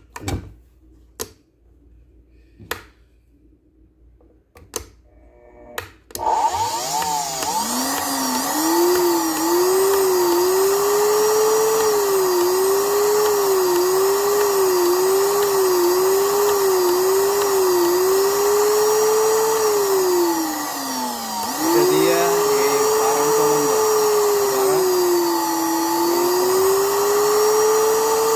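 A few sharp plastic clicks as blender parts snap together, then the Koolen blender's motor starts and winds up to a loud whine. Its speed rises and falls about once a second, slows and nearly stops a little after the middle, then picks up again and runs steadily.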